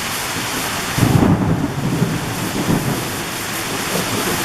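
Thunder following a lightning flash: a sudden loud crack about a second in that rumbles on for a couple of seconds, over the steady hiss of a heavy downpour.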